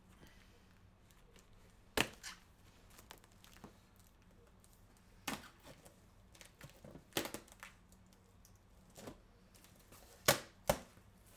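A cardboard shipping box being handled and opened by hand: scattered sharp clicks and knocks with light cardboard rustling in between, the loudest pair near the end.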